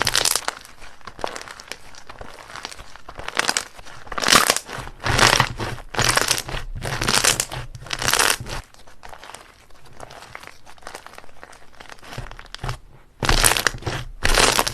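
Slime being squeezed and worked by hand, making crinkling, crackling noises in irregular bursts. It goes quieter for a few seconds past the middle, then loud again near the end.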